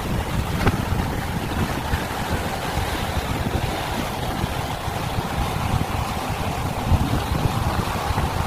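Wind buffeting the microphone over a steady rush of sea surf against rocks.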